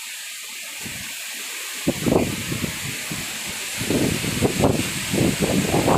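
Strong wind blowing with a steady rushing hiss. From about two seconds in, heavy gusts come in irregular surges and buffet the microphone.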